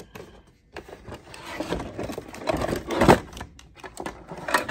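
Handling noise of wires and a loose amplifier board being moved: irregular rustles and knocks, the loudest about three seconds in, with a sharp click near the end.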